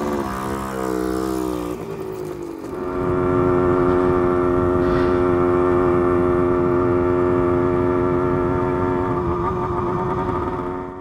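1972 Yamaha LT2 100 Enduro's 100cc single-cylinder two-stroke engine running under way. About two and a half seconds in it gets louder and higher, then holds a steady high pitch, easing off slightly near the end.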